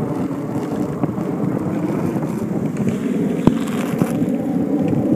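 Steady rumbling wind noise on the microphone outdoors, with a single sharp click about three and a half seconds in.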